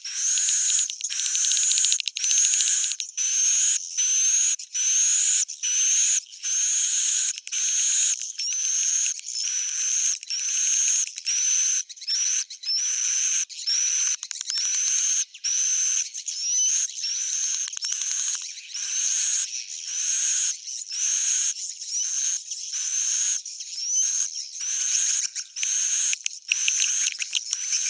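Swiftlet roosting lure call ('suara inap'): a steady run of high, buzzy swiftlet chirps about one a second, each with a short rising whistle, played to coax swiftlets to settle and nest in a swiftlet house.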